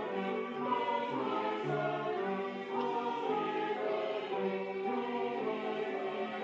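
Slow sacred choral music: sustained chords that change together every half second or so over a bass line moving step by step.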